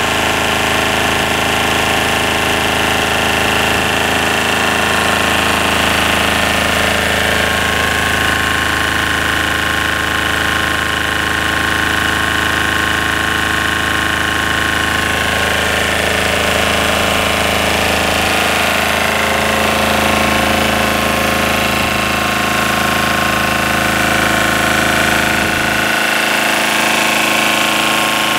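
Generator set's Lombardini diesel engine running steadily at constant speed, driving the alternator.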